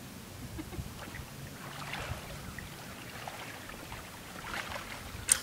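Soft splashing and sloshing of someone wading through shallow floodwater, with one sharp snap near the end.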